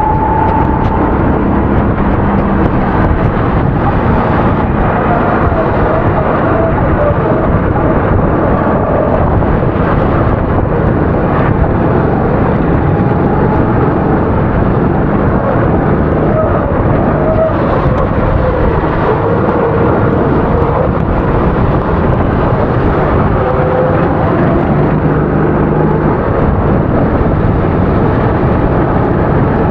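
270cc kart engine running hard at race pace, its pitch rising and falling with the throttle, over a constant dense rush of noise.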